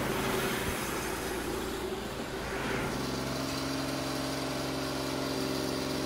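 TimberKing 2220 portable band sawmill running on its engine as the sawhead travels along the track. About halfway through, the rushing noise gives way to a steady engine hum.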